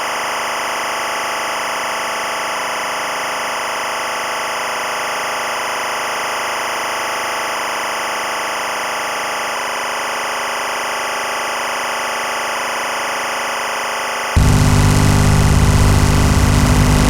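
Electronic noise drone, a dense steady hiss with a faint repeating pulse in the middle range, that cuts abruptly about fourteen seconds in to a louder, low rumbling drone.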